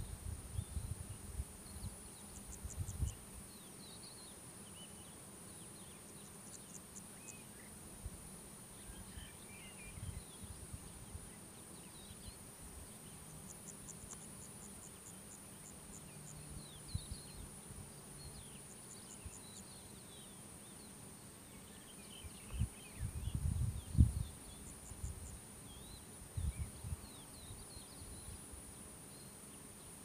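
Insects in a summer field: a steady high-pitched buzz, with short trains of rapid clicking chirps every few seconds, and faint bird chirps in the distance. Wind buffets the microphone at the start and again in gusts about three quarters of the way in, the loudest sound here.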